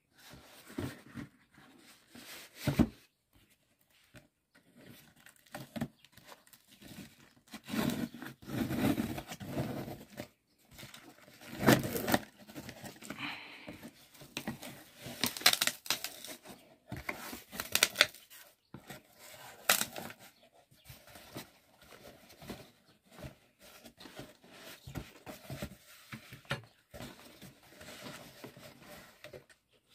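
A cardboard shipping box being opened with scissors: packing tape cut and torn, cardboard flaps rustling and scraping as they are pulled back, with several sharp clicks and snaps scattered through.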